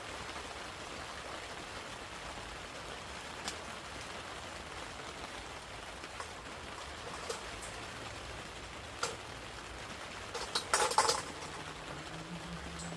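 Steady rain falling, with a few single drips ticking. About ten and a half seconds in comes a short, louder clatter.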